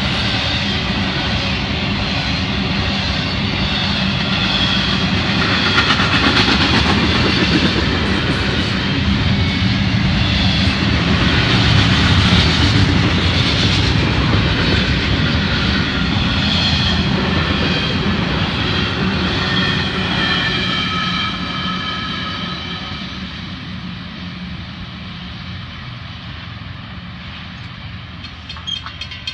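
Intermodal freight cars rolling past at speed, wheels rumbling on the rails with high squealing tones over the rumble. The sound fades about two-thirds of the way in as the end of the train goes by.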